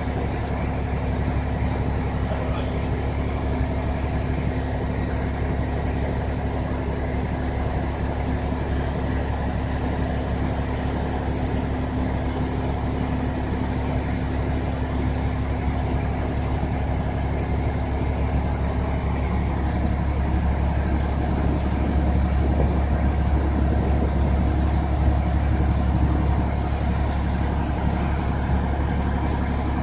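Fire truck's diesel engine running steadily with a low hum. About twenty seconds in, its note changes and grows somewhat louder.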